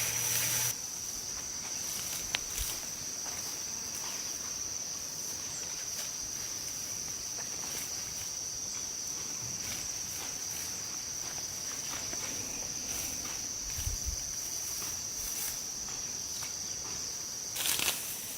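Insects calling steadily at one high pitch, with scattered faint clicks and a short, louder rustle near the end.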